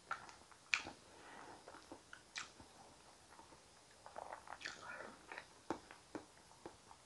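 Close-miked eating sounds: a wooden spoon scooping thick sweet potato soup from a plate, then soft wet mouth smacks and clicks while eating it, busiest about four to five seconds in.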